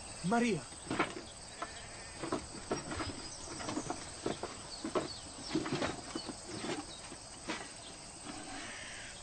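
Irregular knocks and taps of building work with wood and stone, roughly one every half second to a second, over steady outdoor hiss.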